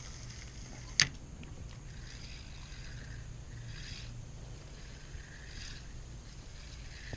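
Spinning reel: the bail snaps shut with one sharp click about a second in, then the line is wound in quietly over a faint steady low hum.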